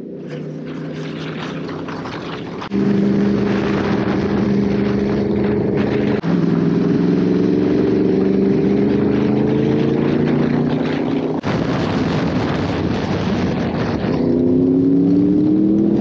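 Sport motorcycle engine pulling at speed, heard from the rider's seat with wind rushing past. Its pitch climbs slowly through each stretch as it accelerates, in several clips joined by sudden cuts.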